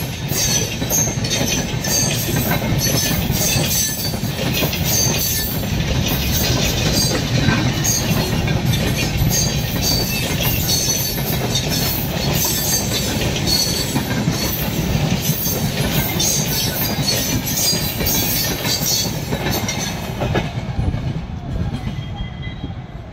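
Long rake of Indian Railways LHB passenger coaches running past at speed: a continuous rumble of wheels with rapid clatter over the rail joints. The sound fades near the end as the last coach goes by and the train draws away.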